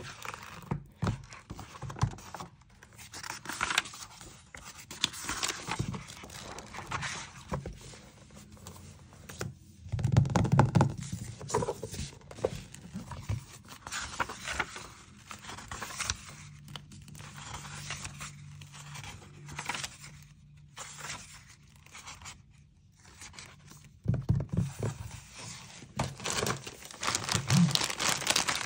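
Pages of a hardback book being turned and riffled by hand: a long run of short paper swishes and flicks. From about three-quarters of the way through, louder crinkling of a plastic zip-lock bag being handled.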